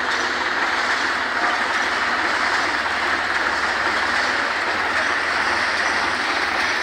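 Diesel tractor engine running steadily, heard as a dense, even mechanical noise with no clear changes in pace.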